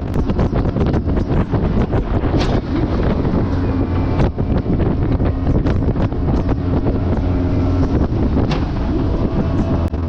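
Jet boat's engine running steadily under way, with wind buffeting the microphone. Many short sharp knocks and crackles run over it, the loudest a little after two seconds and again about eight and a half seconds in.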